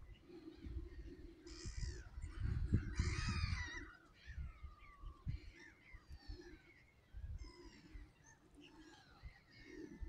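Gulls calling: a flurry of harsh, overlapping calls about one and a half to four seconds in, then scattered single calls, over a low rumble.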